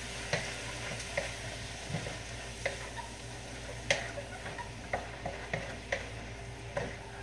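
Shrimp and broccoli stir fry sizzling in a wok, with a utensil stirring and clicking against the pan every second or so.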